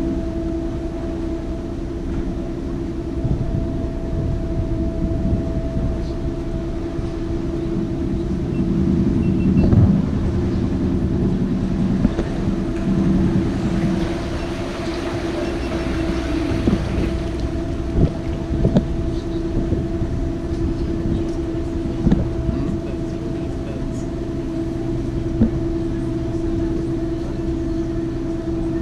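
Canal boat's engine running steadily: a constant hum over a low rumble. A rush of hiss swells for a few seconds near the middle, with a few light knocks scattered through.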